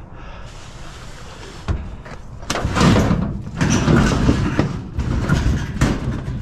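A washing machine scraping and clunking against a truck bed as it is wrestled aboard: one knock, then a few seconds of loud dragging and banging.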